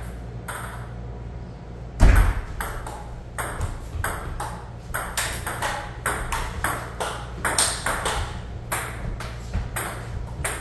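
Table tennis rally: the ball clicks sharply off the paddles and the table in a quick back-and-forth, a few hits every second. A single much louder thump comes about two seconds in.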